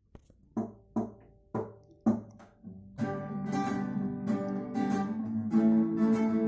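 Acoustic guitar introduction to a song: four single strummed chords, each left to ring, then steady rhythmic strumming from about three seconds in.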